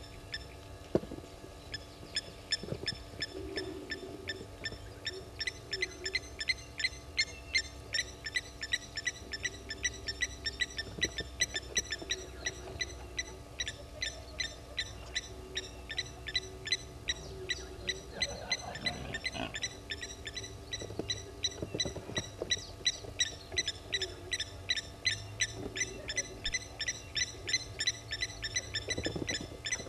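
Wild birds calling: a steady, rapid series of short high clicking notes, about four a second, over low hooting calls that come every second or two.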